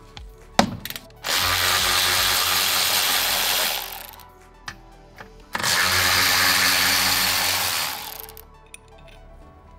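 Cordless electric ratchet running in two bursts of about two and a half seconds each, spinning out the two 11 mm bolts of a sway-bar bushing bracket. A few light clicks and a knock come before the first run, with background music underneath.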